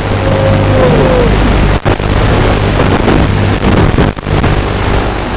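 Walkera F210 racing quadcopter's motors buzzing in flight under heavy hiss, with a whine that falls in pitch about a second in. The sound cuts out briefly twice.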